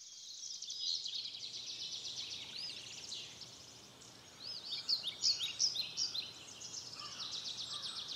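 Summer field ambience: insects chirring in a steady, fast, high trill, with birds chirping over it, the chirps busiest and loudest about halfway through.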